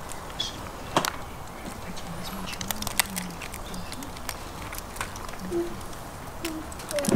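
Close-up eating of boiled crayfish: scattered sharp clicks and cracks of shell and chewing, with a man's low hum of enjoyment about two seconds in.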